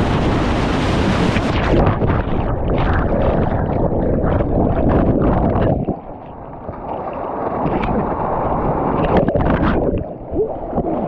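Whitewater rushing and splashing around a paddle raft in a river rapid, loud and steady, with wind buffeting the microphone. The sound turns duller about a second and a half in and drops briefly about six seconds in.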